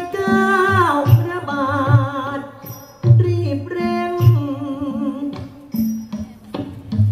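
Thai likay singing: a solo voice holding long, wavering notes with vibrato, accompanied by a traditional ensemble with a steady drum beat.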